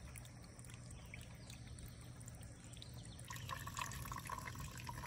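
Faint trickle of a small stream running into a soft plastic CNOC Vecto water bag held under it. About three seconds in the sound changes to water streaming through a Sawyer squeeze filter into a plastic bottle.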